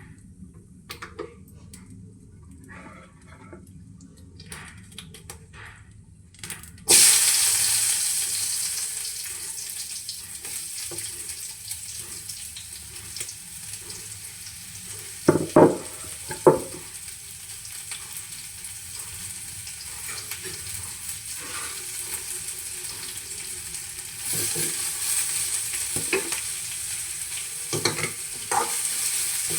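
Chopped onions tipped into hot oil, which starts frying with a sudden loud sizzle about seven seconds in and keeps sizzling. There are a few knocks against the pan midway, and the sizzle grows louder again near the end.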